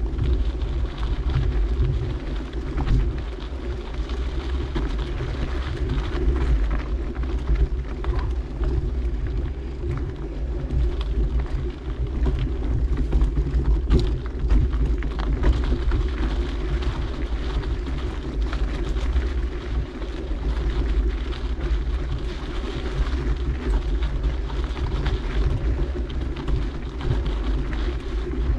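Mountain bike ridden along a dirt trail, heard from an on-board camera: a steady low wind rumble on the microphone, with tyre noise and scattered small knocks and rattles, one sharper knock about halfway through.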